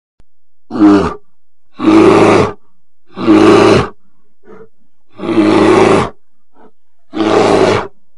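Bear roaring five times in a row, each roar under a second long and spaced a second or so apart, with a couple of short, faint grunts in between.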